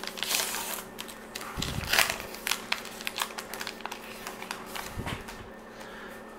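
A 2019 Gypsy Queen baseball card pack's wrapper crinkling and tearing as it is ripped open by hand, in irregular crackles that are loudest about two seconds in. A couple of dull bumps from handling.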